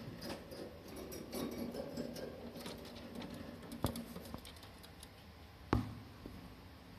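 A budgerigar's beak and feet making small clicks and scratches on the wire bars of its cage, with two sharp knocks about four and six seconds in.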